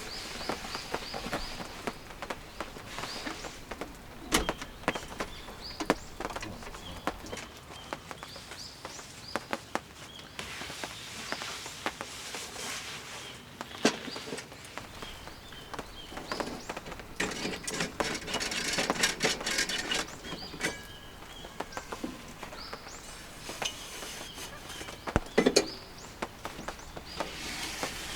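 Outdoor camp ambience: birds chirping, most clearly near the start, over a steady faint hiss, with many scattered sharp taps and knocks throughout. The taps come thickest a little past the middle.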